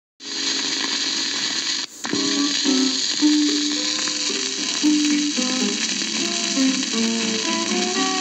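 Steady hiss and crackle of a 1940s home-cut disc recording. After a brief dropout about two seconds in, acoustic guitars start playing.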